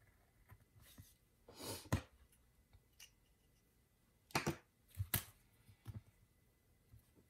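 Hands handling a paper planner page and washi tape on a desk: a few short paper rustles and light taps. The loudest comes about two seconds in, and two more come between four and five seconds in.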